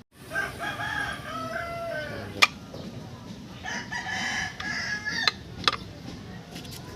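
A rooster crowing twice, each crow a long call that falls in pitch at the end, with a few sharp metallic clicks or knocks between and after the crows.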